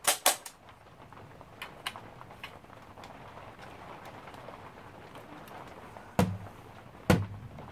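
Hard plastic clicks and handling noise from a Nerf Mega Rotofury blaster worked by hand around its cylinder: a couple of sharp clicks at the start, light ticks and rustling, then two louder plastic clacks near the end.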